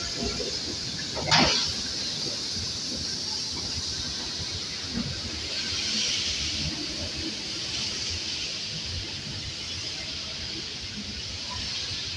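Steady hiss of escaping steam from a steam-hauled passenger train rolling slowly past the platform, with one short sharp noise about a second in.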